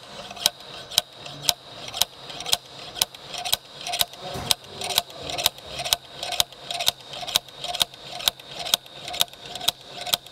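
Ratchet wrench clicking steadily, a sharp click about twice a second with lighter clicks between, as it turns a puller to draw out a fuel injector that is seized tight in the cylinder head.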